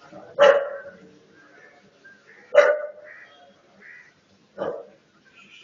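A street dog barking three times, about two seconds apart, each bark short and loud.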